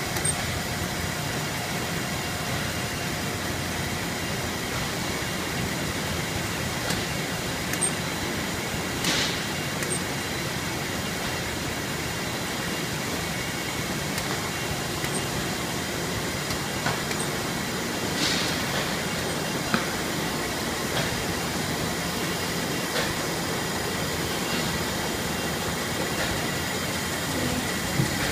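Belt and roller conveyors running steadily, a continuous mechanical rumble with a faint steady high whine and a few short knocks as cartons ride over the rollers.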